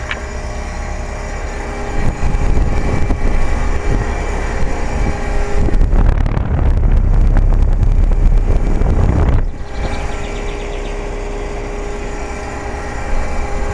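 Luxaire Acclimate Series heat pump condensing units running in cooling mode: a steady hum with several held tones. About two seconds in, a loud low rumble of air buffeting the microphone comes in, grows heavier, and cuts off suddenly near the ten-second mark.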